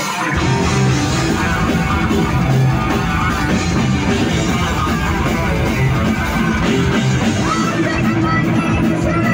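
Heavy metal band playing live: distorted electric guitars over bass and drums, with the full low end of bass and drums crashing in about a third of a second in.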